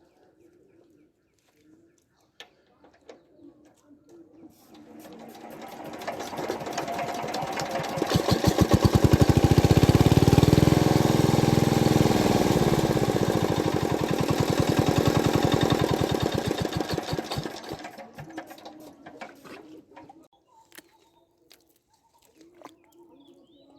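A small engine runs with a fast, even chatter as it passes by. It grows louder over several seconds, drops in pitch as it goes past, then fades away.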